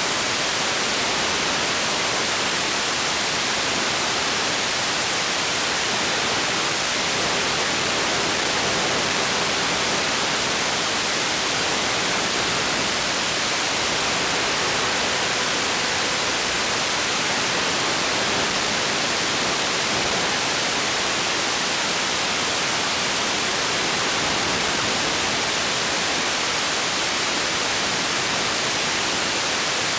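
Steady hiss of static, even and unchanging, like the audio from an analog FPV video receiver.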